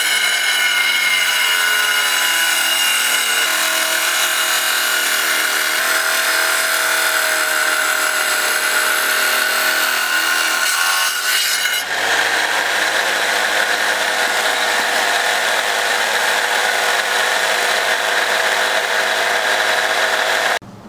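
Wet tile saw with a 7-inch diamond blade cutting through a rock: a loud, steady grinding whine whose tones slide down a little in the first few seconds and shift about twelve seconds in. It cuts off suddenly near the end.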